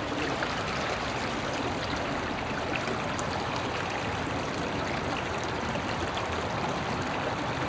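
Small river running steadily over a shallow, rippled stretch: an even rush of flowing water.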